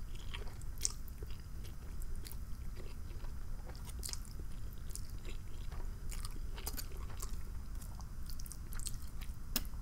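Close-miked eating of fettuccine alfredo: chewing with irregular small mouth clicks and smacks.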